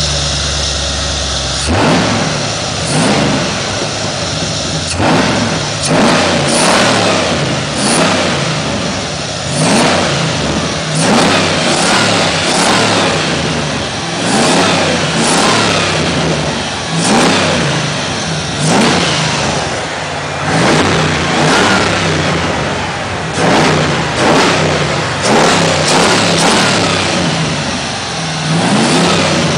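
Chevrolet Impala SS engine idling briefly, then blipped with the throttle over and over, with a short rev about every one to two seconds that rises and falls back toward idle.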